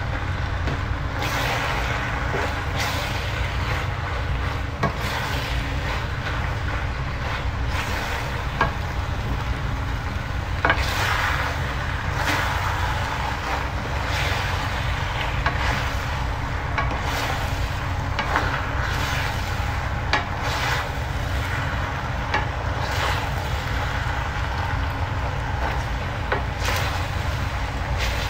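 Two wooden spoons stirring and tossing penne through meat sauce in a frying pan: irregular swishing scrapes every second or two, with light knocks of spoon on pan, the sharpest about eleven seconds in, and a soft sizzle. A steady low rumble runs underneath.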